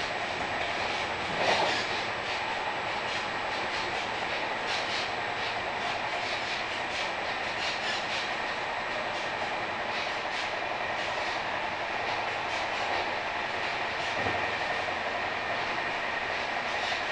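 Running noise heard inside a Vivalto double-deck passenger coach at speed: a steady rumble and hiss of wheels on rail with light clicks from the track. A brief, louder knock comes about a second and a half in.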